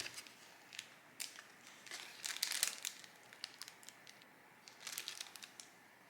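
Paper or plastic packaging crinkling as it is handled, in short irregular bursts of rustling, the busiest stretch a couple of seconds in.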